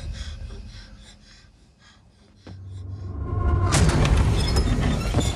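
Horror-trailer sound design: a sound that fades away over the first two seconds, then a low rumble that starts suddenly about two and a half seconds in, and a sharp hit about a second later.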